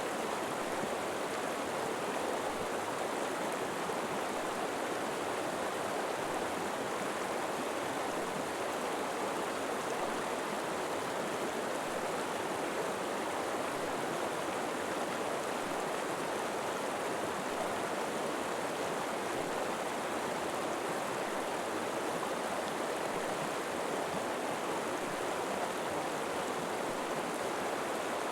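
River water flowing steadily over rocks, a constant even rush with no breaks or changes.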